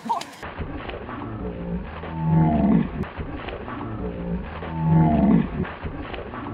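A deep, drawn-out roar-like sound that swells and fades three times, about every two and a half to three seconds.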